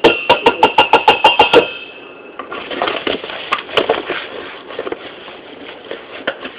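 A rapid run of about a dozen ringing taps, roughly seven a second, then softer scraping and rustling with a few clicks. This is a utensil knocking and scooping while flour is measured into a mixing bowl.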